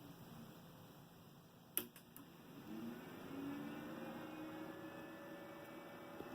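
Faint steady electrical hum, with a single sharp click about two seconds in.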